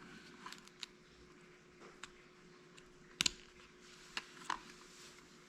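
Small sharp plastic clicks and taps, about half a dozen spread out, with a close double click near the middle the loudest: the 9V battery being pressed onto a homemade connector and the keypad handled. A faint steady hum runs underneath.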